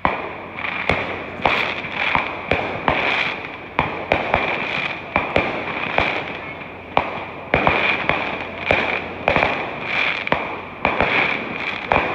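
A rapid barrage of fireworks: bangs about two a second, each trailing off in an echoing rumble, over continuous crackling. It begins suddenly.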